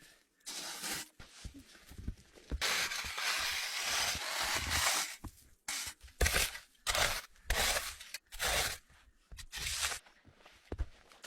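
Packed snow being dug and cut away: a long scraping stroke, then a run of short crunching strokes.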